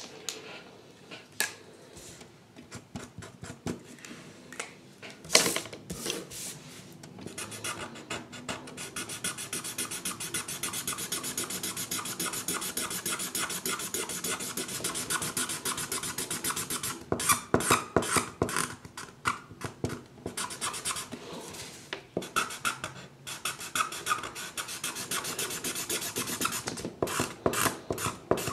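Pencil scratching on paper in quick back-and-forth shading strokes. It settles into a fast, steady run from about a quarter of the way in, then turns to slower, separate strokes past the middle.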